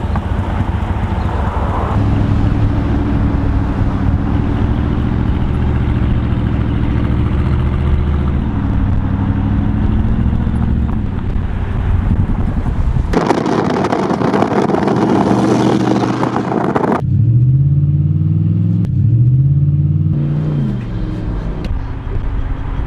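Chrysler 300C's Hemi V8 running with an exhaust leak from a broken flex pipe. It runs steadily at first, then a loud rushing noise lasts about four seconds. Two quick revs come near the end.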